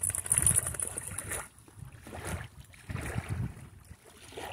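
Wind buffeting the microphone in uneven gusts over the gentle wash of small ripples lapping at the shoreline.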